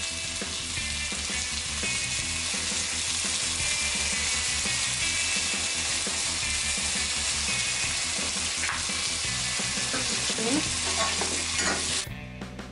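Pork ribs frying in a little oil in an enamel pot, a steady sizzle, with a spatula turning them toward the end. Near the end the sizzle cuts off abruptly and music takes over.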